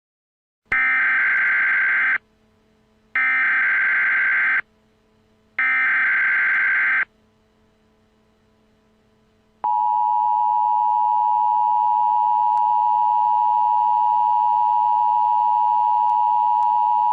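Emergency Alert System header tones: three identical bursts of warbling SAME data tones, each about a second and a half long with a short gap between them. After a pause of a few seconds comes the steady two-tone attention signal, which announces that an emergency message is about to be read.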